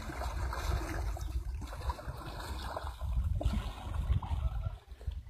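Wooden canoe being paddled on a pond: the paddle dips and splashes and the water washes around the hull, over an uneven low rumble.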